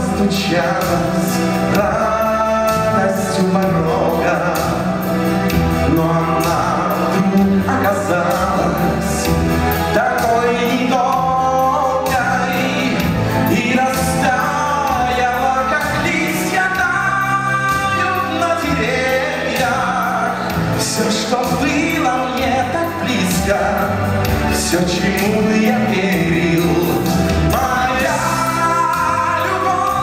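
A pop-rock band plays a song live: a man sings over electric guitars, bass guitar and keyboard.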